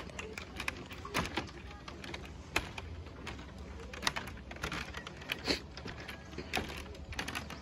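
Bamboo slats of a hanging footbridge clacking and creaking under walking footsteps, with a sharper click about every second and a half over a low steady rumble.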